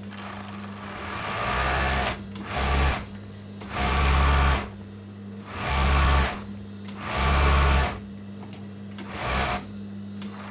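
Industrial overlock (serger) machine stitching along a fabric edge in six short runs, most about a second long, the last one brief. A steady low hum carries on between the runs.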